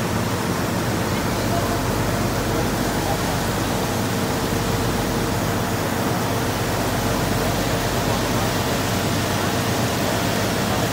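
Steady rush of water spray from fire engine hose streams coming down onto the wet road, over the steady hum of the engines pumping.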